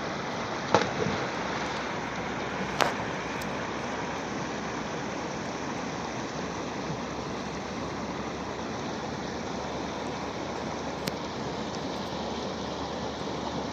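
Fast-flowing river rushing steadily, with two short sharp clicks about one and three seconds in.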